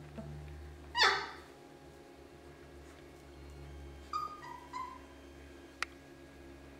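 German shorthaired pointer puppy giving one loud, high yelp that falls quickly in pitch about a second in, then two short whimpers a little past four seconds. A sharp click follows shortly after.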